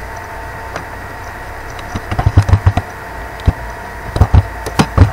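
Typing on a computer keyboard in irregular bursts, starting about two seconds in and again near the end, over a steady background hum. A single faint click comes shortly before the typing.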